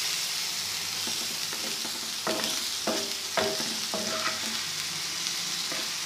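Goat liver and spice masala sizzling in oil on a tawa, with a steady hiss. Several times in the middle the stirring utensil knocks and scrapes against the pan, each stroke giving a short ring.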